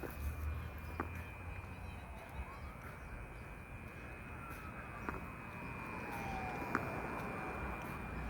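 A steady, high-pitched buzz of unidentified origin, sounding like an electrical transformer buzz and seeming to come from all around, with wind rumbling on the microphone.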